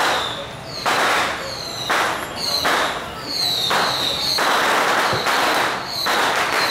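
Metallic procession percussion, cymbal-like crashes with a short ringing tone, struck about once a second in a steady march beat.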